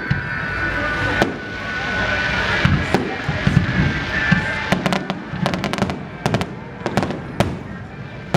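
Fireworks display: deep booms of shells bursting, then from about five seconds in a rapid run of sharp crackling pops.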